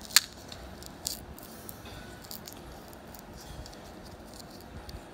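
A sharp, loud click near the start, a smaller click about a second later, then faint scattered small ticks: small parts and tools being handled while working on an opened quartz wristwatch.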